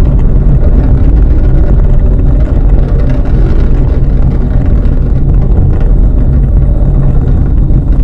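Loud, steady, deep rumble of an Atlas V rocket in powered ascent, its first-stage RD-180 engine and solid rocket boosters burning together.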